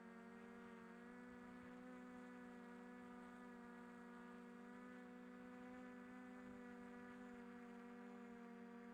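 Faint, steady buzzing hum of a small multirotor drone's propellers, its pitch rising slightly about a second in.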